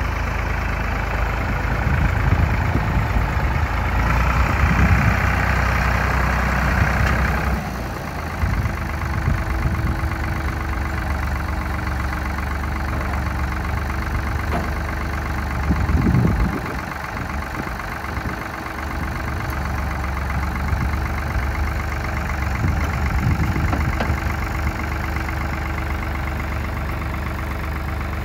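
1995 Ford New Holland 4630 tractor's three-cylinder diesel engine running steadily, louder and busier for about the first seven seconds before it settles to a lower, even idle.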